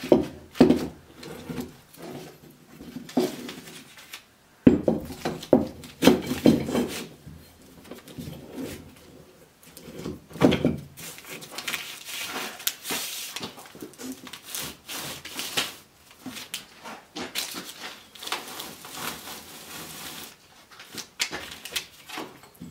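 Wooden boards and clamps being handled on a wooden workbench: a run of knocks and clunks, with a stretch of rubbing about eleven seconds in, then lighter handling noises.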